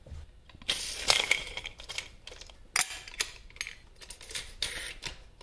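Metal clinks, clicks and scrapes from handling an angle grinder and its discs as a flap disc is swapped for a diamond cut-off wheel. The sounds come in short, irregular bursts.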